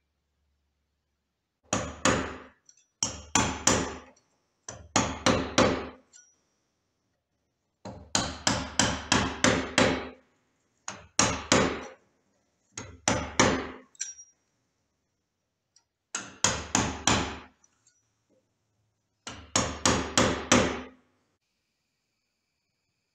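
Hammer blows on a chisel cutting into wood, in about eight runs of three to six quick, sharp strikes each, with short pauses between the runs.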